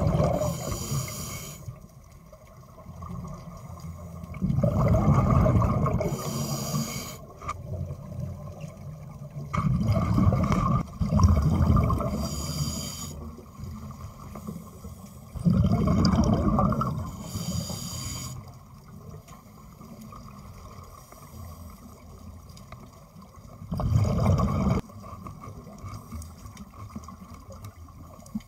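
Scuba diver breathing underwater through a regulator: rumbling bursts of exhaled bubbles every five or six seconds, each with a short hiss of air, and a longer quiet stretch after the fourth burst.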